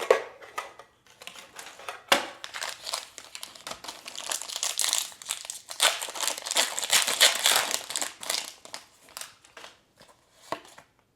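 Foil Pokémon booster pack wrapper being torn open and crinkled: a run of crackling rustles that starts sharply about two seconds in and is busiest through the middle.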